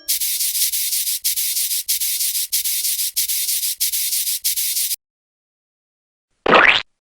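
Rhythmic, hissy scraping or rubbing noise in about eight even strokes over five seconds, then a short rising swish near the end.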